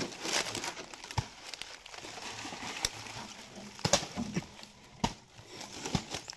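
Dry palm fronds, leaf litter and fibrous rotten palm wood rustling and crackling as hands pull the split trunk apart, with several sharp cracks along the way.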